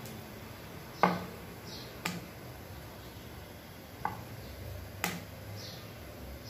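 Wooden rolling pin rolling out dough on a round wooden rolling board, with four sharp knocks about a second apart, the first the loudest, and soft rubbing swishes between them.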